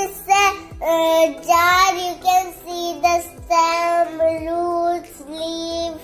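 A child singing a short tune in several sung phrases with held notes, over soft background music.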